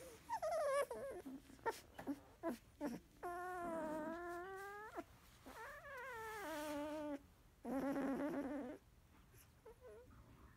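16-day-old Labrador retriever puppy whimpering: a falling squeal, a few short squeaks, then three drawn-out whines, the second starting high and sliding down.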